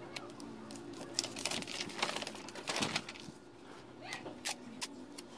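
Sheets of paper and a roll of clear sticky tape being handled on a table: rustling and crinkling with scattered light taps and crackles.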